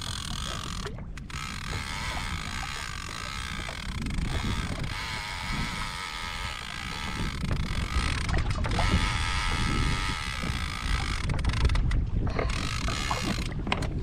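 Shimano Talica lever-drag fishing reel working under the load of a big fish during the fight, its mechanism giving a steady high tone. Low wind and water rumble on the microphone runs underneath.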